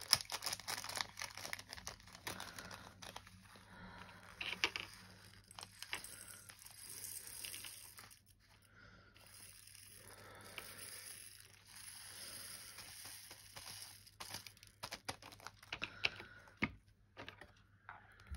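Small plastic bags of craft colours being handled, crinkling, with scattered light clicks and rattles as the colours are put away into pots.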